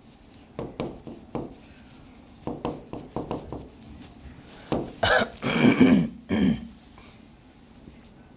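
Marker pen strokes on a whiteboard as a line of words is written, a run of short scratchy strokes over the first few seconds. About five seconds in, a brief, louder burst of a man's voice, such as a cough or a throat-clearing.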